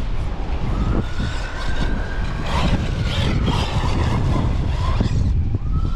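Team Corally Asuga XLR 6S buggy's brushless electric motor whining as the buggy accelerates, its pitch rising and holding about a second in and rising again near the end, with gritty spraying from the tyres on dirt. Heavy wind buffets the microphone throughout.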